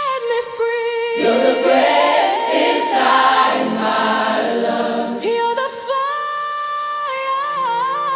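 Worship song with sustained wordless vocal harmonies from a choir-like vocal group, held notes gliding between pitches.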